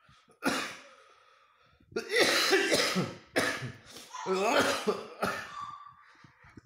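A man coughing, one cough and then a fit of repeated harsh coughs, a lingering symptom of COVID-19 on his sixth day of illness.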